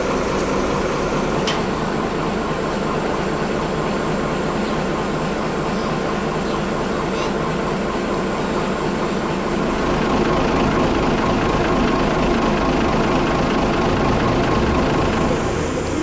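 Mobile crane's engine running steadily while it hoists a church bell on its cable, growing a little louder about ten seconds in as it takes the load.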